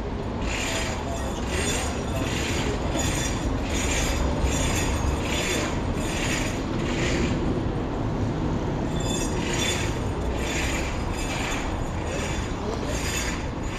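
Footsteps at a walking pace, about two a second, each a short scuffing hit, pausing briefly about halfway through and then going on, over a steady low rumble of city traffic.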